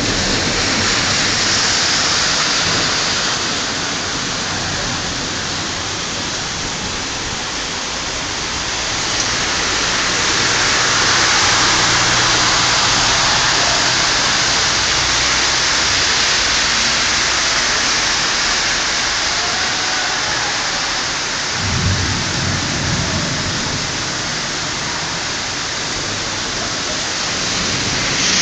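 Heavy thunderstorm downpour, a steady hiss of rain that swells and eases. A low rumble of thunder comes about three-quarters of the way through.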